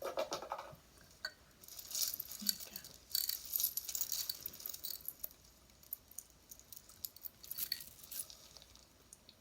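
Small pieces of metal jewelry clinking and jangling against each other as they are sifted by hand, in two bursts of jingling with quieter handling between.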